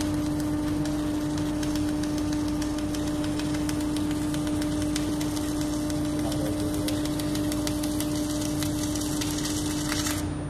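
Submerged arc welding on X80 pipeline steel: a steady hum with dense fine crackle from the arc burning under the flux. The crackle and then the hum cut off shortly before the end, as the arc is stopped.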